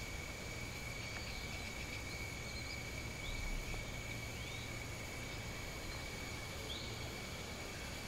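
Tropical rainforest ambience: a steady, high-pitched insect drone with a few short rising chirps above it.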